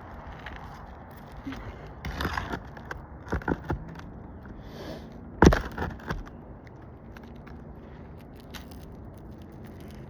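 Metal roofing tool scraping and knocking against asphalt shingles as nails are worked loose from underneath, in scattered clicks and scrapes with one sharp knock about five and a half seconds in.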